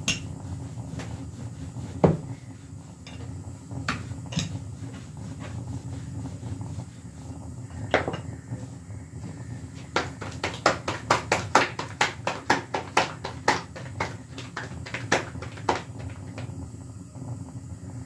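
Kitchen utensils knocking and clattering: a few separate knocks, then a quick run of sharp taps, about three a second, starting about ten seconds in and lasting some six seconds, over a steady low hum.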